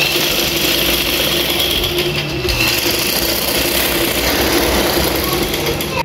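Old black sewing machine running steadily, its needle stitching through fabric with a continuous mechanical whir.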